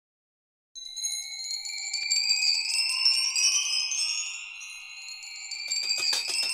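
Background music: a shimmering, chime-like intro whose tones slowly rise in pitch, starting just under a second in, with a steady percussion beat coming in near the end.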